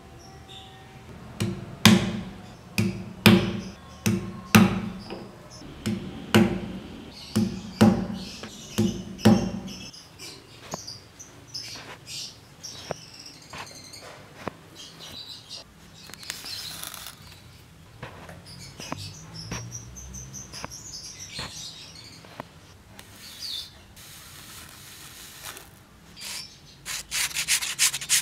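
Steel pricking irons struck through vegetable-tanned cowhide, more than a dozen sharp blows with a low thud about every half to three-quarters of a second for the first ten seconds. Then quieter ticks and rasps of waxed polyester thread pulled through the holes during hand saddle stitching, and near the end the rapid back-and-forth scrubbing of a sanding sponge on the leather edge.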